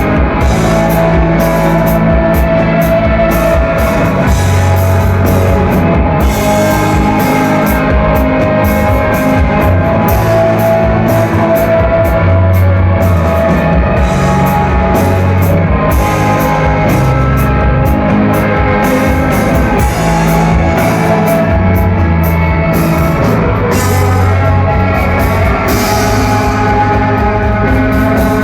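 Rock band playing live, loud: an instrumental stretch with a steady drum-kit beat, guitar and bass, without singing.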